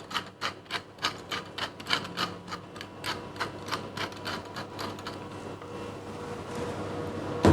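Pepper mill grinding peppercorns into a pot, a quick even run of clicks about four a second that stops about five seconds in. A faint steady hum continues underneath.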